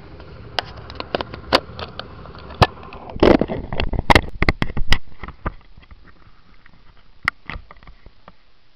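A Yamaha Factor motorcycle's single-cylinder engine running under a string of sharp knocks and clicks, with a short rush of scraping noise about three seconds in. The knocks thin out after about five seconds, leaving a steady running noise.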